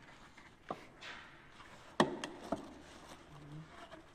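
Hard plastic knocks as PVC pipe and elbow fittings are handled and fitted together, the loudest about two seconds in, with a short stretch of rubbing noise about a second in.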